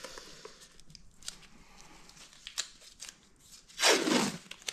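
Blue masking tape pulled off its roll in one loud rip of about half a second near the end, after light rustling and a few small clicks of gloved hands working around the engine.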